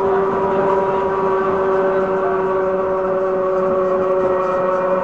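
Sydney 'wooden' Bradfield electric motor car under way: the train's running noise with a steady, multi-toned electric motor whine.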